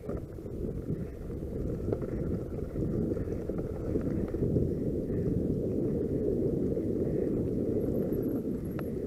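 Wind buffeting the microphone and a continuous low rumble from a mountain bike riding over bumpy grass and dirt trail.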